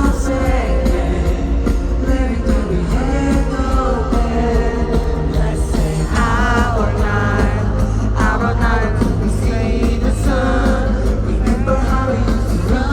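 Live pop-rock song with a male lead vocal over a band track with heavy bass and drums. The singer holds a long wavering note about six seconds in.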